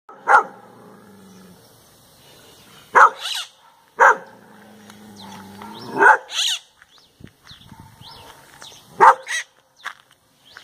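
Dog barks, five loud ones, three of them answered at once by a shriller squawk from a maritaca parakeet, which joins in as if barking too, with small high chirps from the bird between the later barks.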